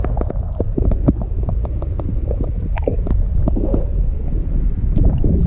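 Muffled low rumble and sloshing of lake water heard by a camera held underwater, with many scattered small clicks and knocks.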